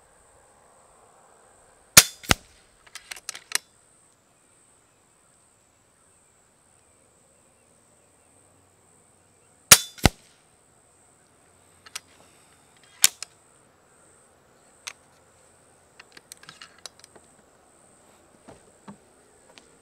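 Two shots from an FX Impact X .25 regulated PCP air rifle, about two seconds in and again near the middle, each a sharp crack followed a moment later by a fainter second crack. Lighter clicks and knocks come between and after the shots, with one sharper click a few seconds after the second shot.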